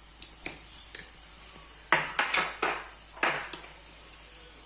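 Metal spoon clinking and tapping against cookware as spice powders are spooned into the pan: a few light ticks, then a cluster of louder clinks around the middle.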